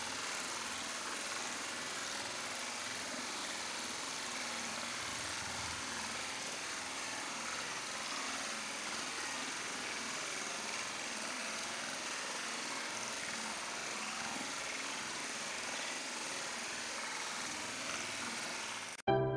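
Small waterfall of muddy water spilling over rocks into a stream: a steady rushing and splashing that stops abruptly near the end.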